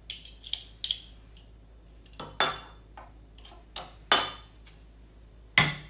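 Metal garlic press and knife clinking as garlic cloves are crushed and the pulp scraped off: about eight sharp metallic clicks at irregular intervals, the loudest near the end.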